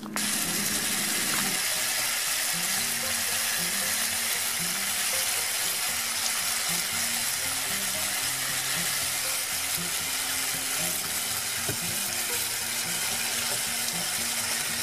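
Water running steadily into a sink as soil-covered onions are rinsed by hand in a bowl.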